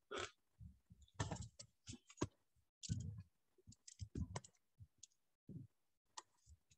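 Faint, irregular clicks and light knocks from someone working at a computer, scattered a few per second with short pauses between.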